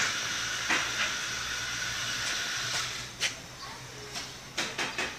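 Steam locomotive venting a steady hiss of steam, which stops about three seconds in. A few sharp knocks follow near the end.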